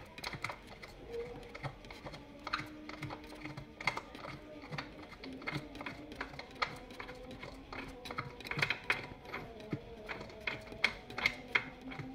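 Light, irregular metallic clicks and ticks as a Yamaha Lexi scooter's exhaust mounting bolt is unscrewed by hand, the bolt and washer knocking against the bracket. The clicks come in quick clusters, thickest over the last few seconds.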